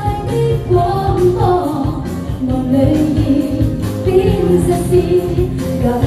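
A woman singing a Chinese pop song through a handheld microphone over a karaoke backing track with a steady beat.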